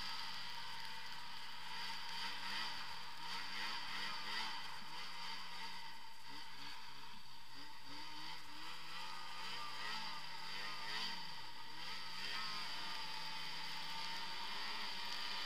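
Snowmobile's 600 two-stroke twin engine under way, its pitch rising and falling over and over as the throttle is worked through turns, then holding steadier near the end, over a steady hiss.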